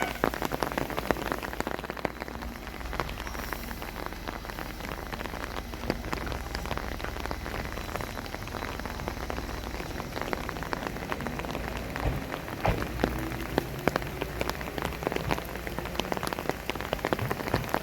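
Steady rain falling, a dense scatter of small drop impacts over an even hiss, with a few louder drips standing out.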